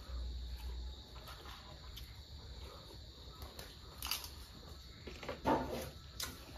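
Close-up eating sounds: chewing and mouth noises on crunchy fried chicken skin, with a few sharp clicks and a brief mouth sound about five and a half seconds in. A low bump sounds in the first second.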